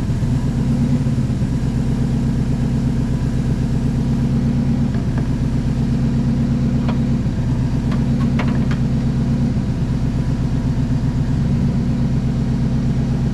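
Chevy Silverado's engine running at a steady, raised idle, its idle speed turned up through the computer tune while Seafoam is drawn through the intake.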